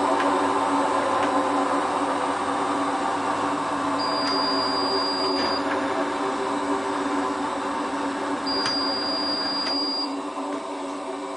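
Hotpoint Ultima WT960 washing machine running its drum and motor, a steady hum with a held tone that eases off a little toward the end. It is trying to spin an unbalanced load of towels and a dog mat, which keeps it from holding its 600 rpm spin.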